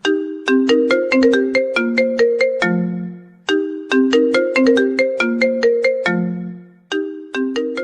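A mobile phone ringtone: a short melody of quickly fading notes, the phrase starting over about every three and a half seconds.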